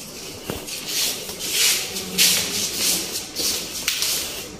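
Fabric rustling and rubbing against the handheld phone's microphone while walking, in repeated swishes.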